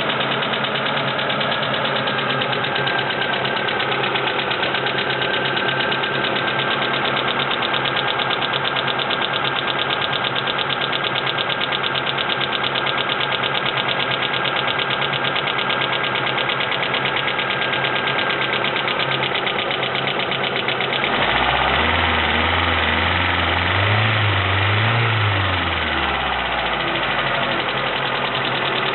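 Mitsubishi Lancer 9 engine running with a fast, even ticking from its hydraulic lifters after a timing belt replacement. The ticking is typical of lifters left without oil pressure while the crank and cam were turned by hand, and is considered acceptable. About two-thirds of the way through, a deeper hum joins, swells briefly and eases off.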